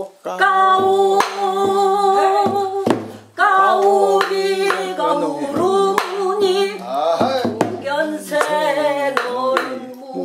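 A voice singing a Korean folk song in long held notes with a wavering, ornamented pitch, broken by short pauses for breath. Hands clap the beat.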